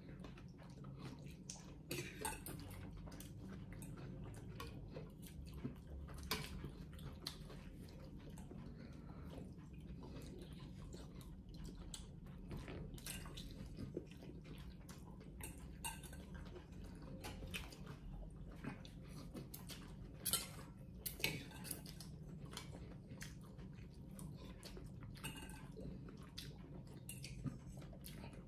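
Metal spoons and forks clinking and scraping against ceramic soup bowls as pho is eaten: scattered light clinks throughout, with a few sharper ones about twenty seconds in.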